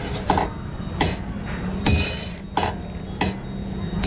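A hammer striking metal four times at uneven intervals, each blow a sharp clang that rings on briefly.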